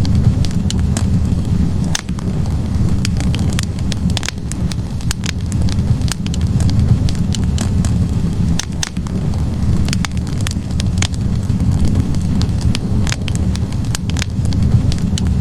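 Log fire burning in a fireplace: a steady low rumble of flames with frequent, irregular sharp crackles and pops from the burning wood.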